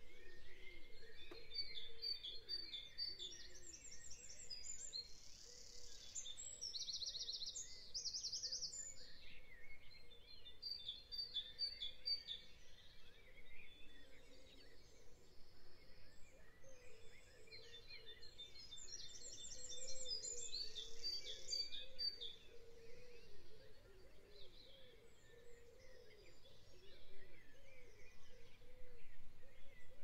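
Faint birds chirping and trilling, with clusters of fast, high trills about two to ten seconds in and again around eighteen to twenty-two seconds.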